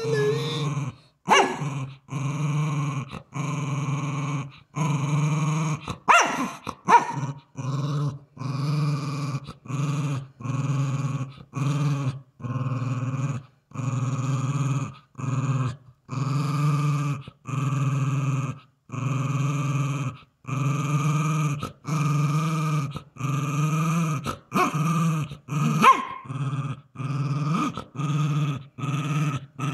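Small dog growling over a chew it is eating while a hand touches its head: food guarding. The low growl comes in phrases of about a second, one per breath, with short gaps between, and a few sharper, louder sounds break in about a second in, around six seconds in and near the end.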